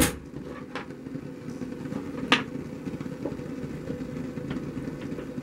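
Steady rushing of an E Partridge LPG gas soldering iron's burner, turned up to its highest temperature, with a few sharp clicks of lead came strips being handled on the bench, the loudest about two seconds in.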